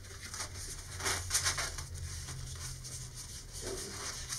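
Thin embossed paper wrap being pre-rolled by hand against a cutting mat: soft rustling and rubbing of the paper, loudest about a second in and again briefly near the end.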